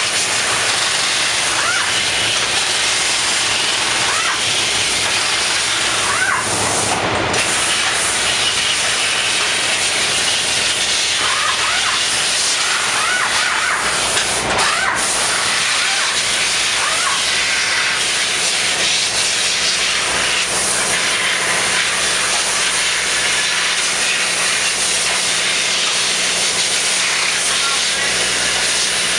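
Steady, loud hissing noise, with faint voices under it.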